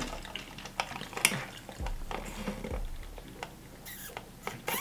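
Drinking through a straw from a foam cup: quiet sipping with a scattering of small clicks.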